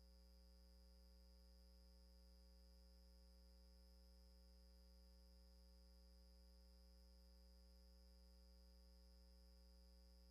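Near silence: a faint steady electrical hum with low hiss.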